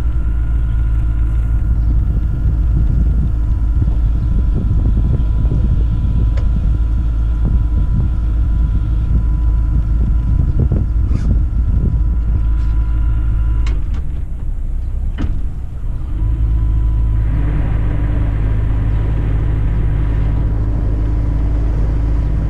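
Sailboat's inboard engine running at low speed under way, a steady low rumble. About two-thirds through it drops off for a couple of seconds, then comes back stronger, with a few sharp clicks along the way.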